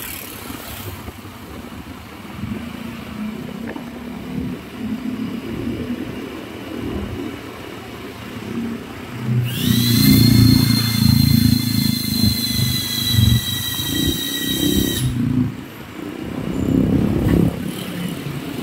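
Road traffic rumbling, then a passing cement-mixer truck's air horn sounds one long held chord for about five seconds, its pitch rising briefly as it starts, over the truck's loud engine. Another vehicle's engine swells near the end.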